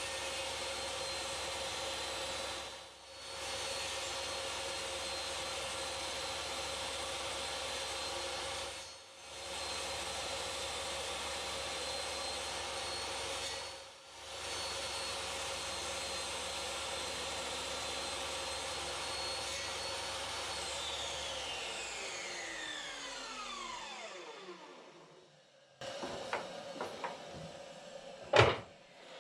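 Electric motor of a workshop power tool running at a steady pitch, broken by three short breaks, then switched off about 21 seconds in and winding down with a falling whine. A few sharp knocks near the end.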